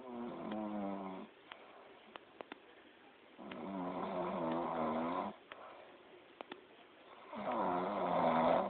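A sleeping person snoring: three snores, each lasting one to two seconds, spaced about four seconds apart.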